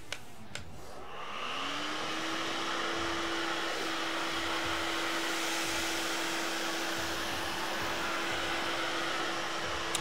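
Miele Triflex HX1 cordless stick vacuum starting up on its medium suction setting: its motor whine rises about a second in, then runs steadily with a rush of air as it is pushed over thick pile carpet.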